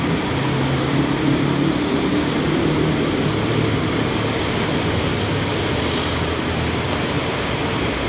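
Heavy multi-lane road traffic running steadily below, a continuous rush of passing vehicles. A low drone sits over it for the first three seconds or so, then fades.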